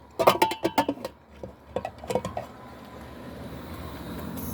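Pressure cooker and its metal parts clattering as they are handled, a quick run of clicks and knocks in the first second and a few more about two seconds in. A steady hiss then slowly grows louder.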